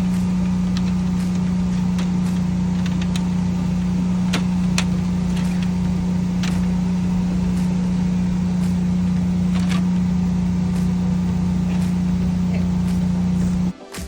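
Steady motor hum at one constant low pitch, with a few faint clicks over it; it cuts off suddenly near the end.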